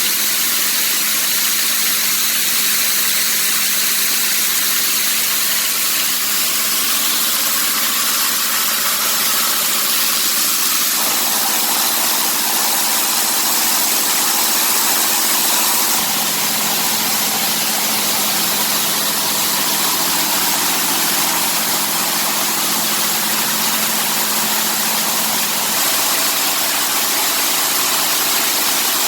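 Small locally built coffee huller running steadily while dry-hulling arabica coffee, a continuous loud machine noise with a hissing rush over a steady hum; the sound shifts abruptly a few times.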